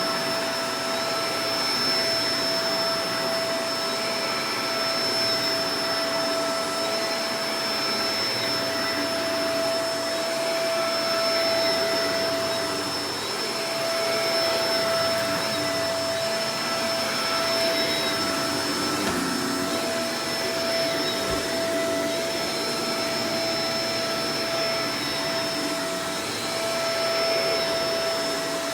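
Shark Professional Powered Lift-Away DLX (NV586) upright vacuum cleaner running steadily: a constant motor rush with a steady high whine, swelling and easing gently in loudness.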